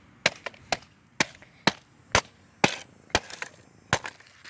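Rapid, repeated blows on a hard plastic Lego alarm clock: sharp knocks about two a second, each one short.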